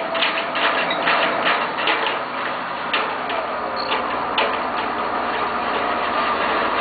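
A 1990 GMC TC7 boom truck's engine running with a regular mechanical ticking, about two clicks a second, over a steady running noise. A low hum comes in about three seconds in.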